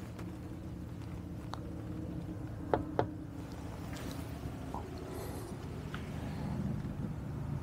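A handheld camera rig knocking lightly against window glass and its wooden frame: a few short clicks and taps, the loudest pair about three seconds in, over a low steady hum.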